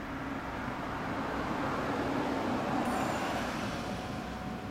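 A road vehicle passing by: its noise swells to a peak about three seconds in, then fades, over a steady low traffic rumble.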